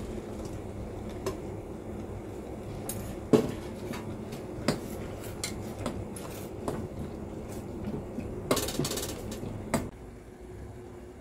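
Metal kitchenware clinking: a steel bowl and chopsticks knocking against a stainless steel pot as greens are tipped into simmering instant noodles and pushed down. The clinks and knocks are scattered, with a quick run of clatter about nine seconds in, over a steady low background noise.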